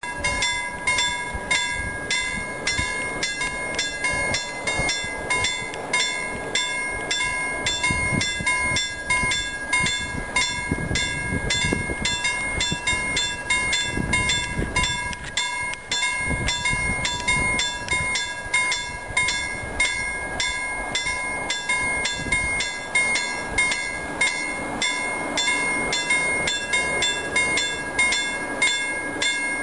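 Electronic level-crossing warning bell ringing in rapid, evenly spaced strikes, about two a second, at a steady pitch: the half-barrier crossing signalling an approaching train.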